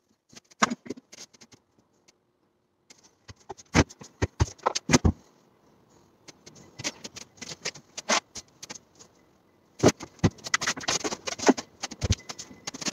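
Handling noise: irregular clicks and taps of wood being moved about, with a few heavier knocks about four to five seconds in and a busy spell of clattering near the end as the wooden corner unit is taken hold of and shifted.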